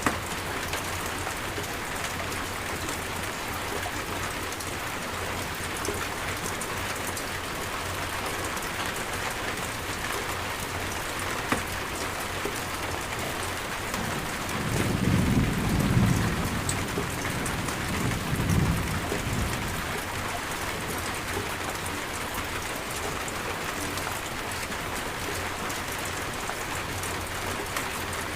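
Steady heavy rain falling, with a low roll of thunder rumbling in about halfway through and dying away some six seconds later.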